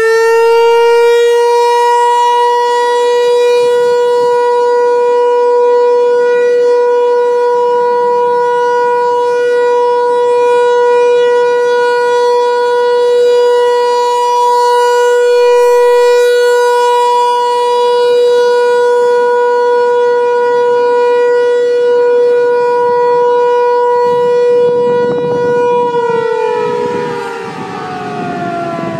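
American Signal T-128 electromechanical outdoor warning siren sounding a loud, steady tone during a short 30-second activation. Near the end it winds down, its pitch falling.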